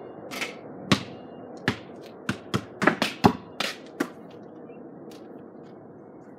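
Basketball bouncing: about ten sharp knocks at uneven spacing over the first four seconds, then stopping.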